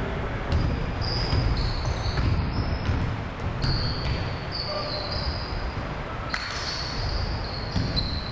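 Basketball being dribbled and bouncing on a hardwood gym floor, with sneakers squeaking in many short high chirps and feet thudding as players run the court.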